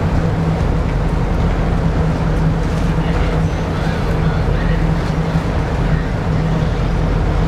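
A large yacht's engine running steadily as the boat motors along: an even, low drone with a constant hum in it.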